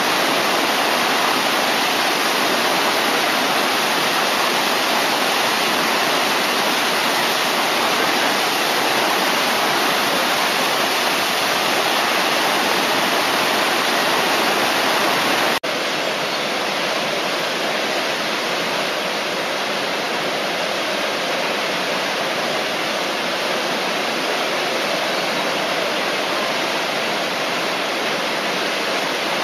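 Steady rushing of whitewater pouring through the Eisbach river's standing surf wave. About halfway through it drops abruptly to a slightly lower level and carries on.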